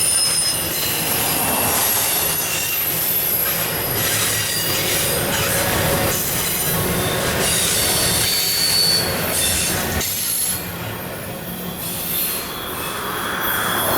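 Long intermodal freight train's cars rolling past at speed, a steady rumble of wheels on rail with thin, high wheel squeals coming and going. It eases off briefly about eleven seconds in, then builds again near the end.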